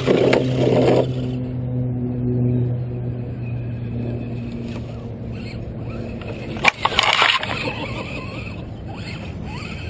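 Tamiya CR-01 RC crawler's electric motor and gears humming as the truck drives away, fading out after a few seconds; a sharp click and a short rustling burst come about seven seconds in.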